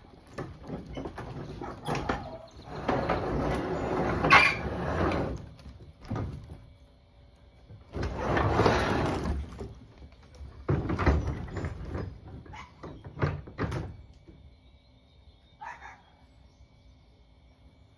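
Old wooden barn door being pushed open in several loud, noisy bursts, with a few sharp knocks near the end.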